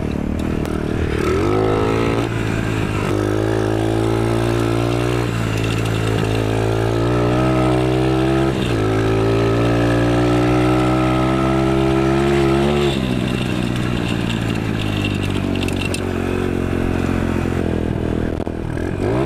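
Small dirt bike engine pulling hard under throttle for a second-gear power wheelie. The revs climb steadily, falter briefly about eight seconds in, then climb again. About thirteen seconds in the throttle is shut and the engine settles back to lower, steadier revs.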